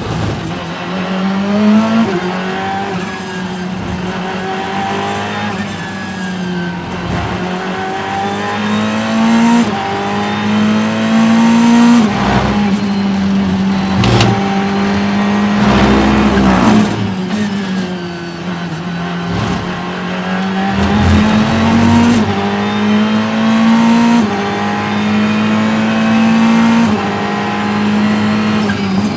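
In-car sound of a Ferrari GT3 race car's V8 engine at full throttle, pulling up through the gears, its pitch climbing and dropping back at each upshift. About halfway through there is a quick run of downshifts under braking before it pulls hard again.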